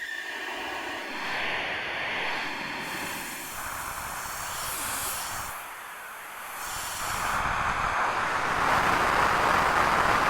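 Synthesized noise texture from a custom UVI Falcon software instrument: a swelling hiss and rumble without a clear pitch that rises and falls in waves and grows louder about seven seconds in.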